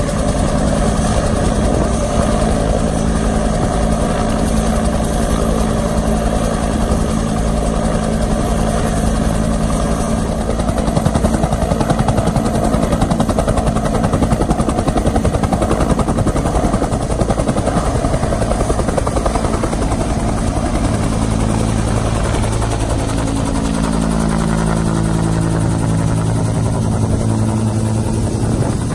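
Bell AH-1F Cobra's turbine engine and two-bladed main rotor running on the ground, then lifting off and passing overhead. The rotor beat pulses loudest around the middle, and the engine pitch shifts near the end as it flies over.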